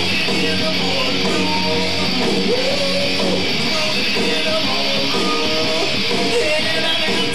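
Two electric guitars playing a rock song through amplifiers in a live band rehearsal: strummed chords with bending lead lines.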